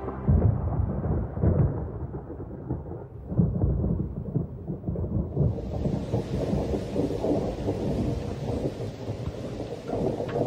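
Thunder rumbling in heavy, rolling swells, loudest in the first few seconds. From about five seconds in, the steady hiss of heavy rain joins it.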